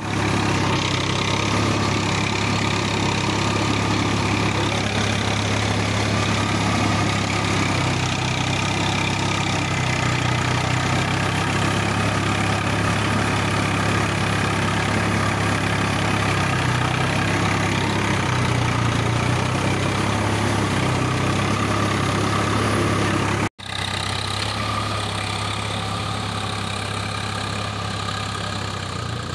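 Tractor's diesel engine running steadily. It drops out for an instant about three-quarters of the way through, then continues a little quieter.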